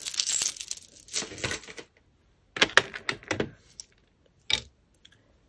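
Costume jewellery clinking and rattling as glass beads, chains and pendants are handled in a tub. It comes in two spells of clatter, then a single sharp click near the end.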